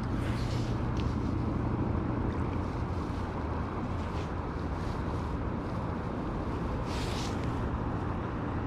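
Steady low rushing noise of water flowing below a dam, with a few short hissing sounds, one about a second in and one near the end.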